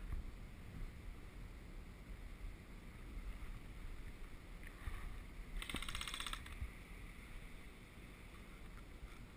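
Low rumble of movement and wind on the microphone as an airsoft player shifts behind cover. About six seconds in comes a rapid rattling burst of airsoft gun fire, about a second long.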